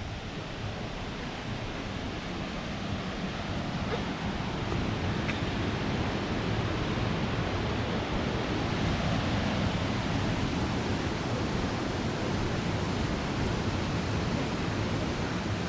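Steady rush of falling water from a waterfall, growing louder over the first several seconds.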